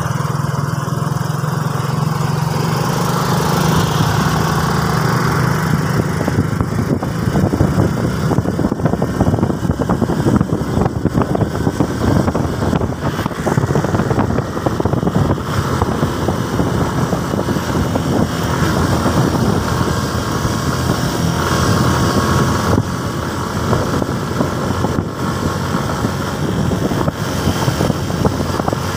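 Motorcycle engine running steadily while riding along a road, mixed with rough wind rush on the microphone.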